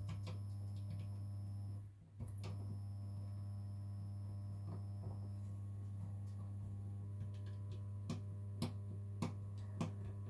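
A steady low electrical hum with a thin high whine above it, briefly cutting out about two seconds in. A few light clicks and knocks come near the end.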